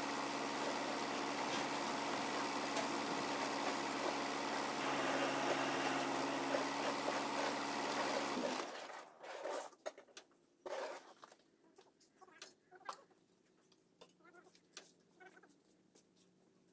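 Truck engine idling steadily, then cutting off abruptly about eight and a half seconds in. After that only faint, scattered knocks and clicks are heard.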